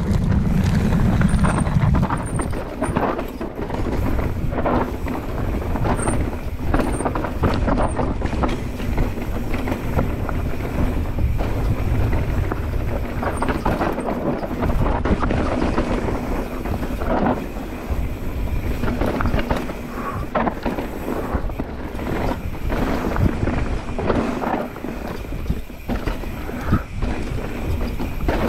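Mountain bike running fast downhill on a dirt trail: wind buffeting the microphone, tyres on dirt, and the bike's chain and frame clattering irregularly over bumps.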